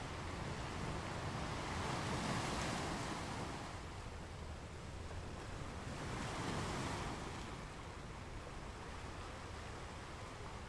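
Small waves washing onto a sandy beach, the surf swelling up twice about four seconds apart, over a steady low rumble of wind on the microphone.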